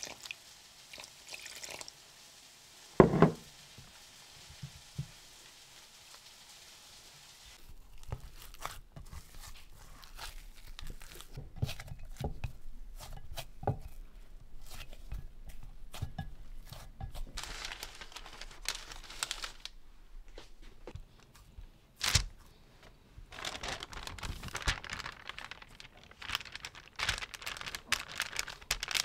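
Hands working dough in a glass bowl: soft rubbing, a heavy thump about three seconds in, then many small knocks and squishes of dough against the glass. Later, parchment paper crinkles as the dough is pressed flat on it.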